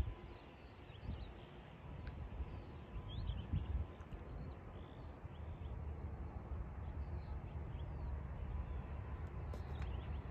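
Wind buffeting the microphone with a low rumble from a distant landing airliner, which grows steadier and a little louder in the second half, while small birds chirp faintly.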